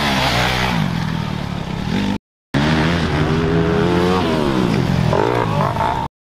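Dirt bike engines revving on a motocross track as two or more bikes ride through, the pitch climbing and falling with the throttle. The sound drops out for a moment about two seconds in and again at the end.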